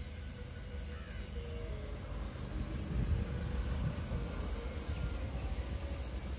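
Crows cawing over a steady low rumble.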